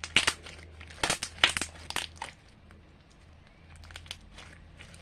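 Crinkling of plastic or paper packaging being handled, in two quick bursts about a second apart, then a few fainter rustles.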